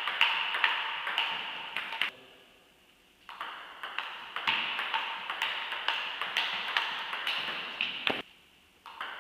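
Table tennis rally: the ball clicks sharply off bats and table in quick alternation, about two to three hits a second, over a steady hiss. The hits stop twice for about a second, at around two seconds in and near the end, then the rally sound picks up again.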